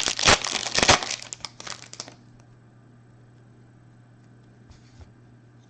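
Foil wrapper of a Bowman Chrome baseball card pack crinkling and tearing as it is opened by hand, dense and crackly, stopping about two seconds in. After that only a faint steady hum and a couple of light ticks remain.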